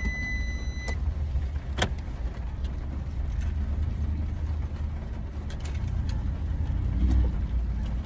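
Inside a parked car as the driver gets out: a short electronic chime stops about a second in, followed by a few sharp clicks and knocks, over a steady low rumble.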